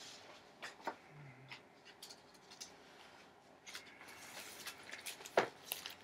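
A large hardcover book being handled and its pages turned: scattered light clicks and taps, a paper rustle between about four and five seconds in, and one louder knock about five and a half seconds in.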